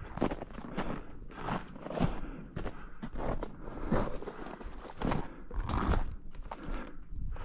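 Footsteps crunching over rocky ground, frozen snow patches and dry brush at a walking pace, about two steps a second.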